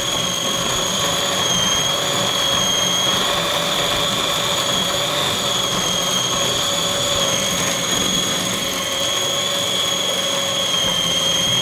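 Small high-speed electric kitchen motor of the blender kind, running with a steady high whine.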